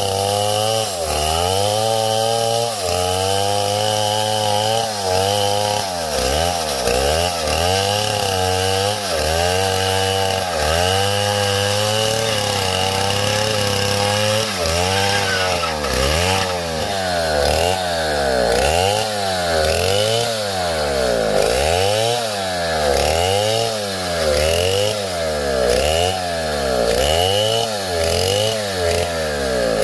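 Chainsaw running, its engine pitch dipping and rising again over and over, roughly once a second, more quickly in the second half.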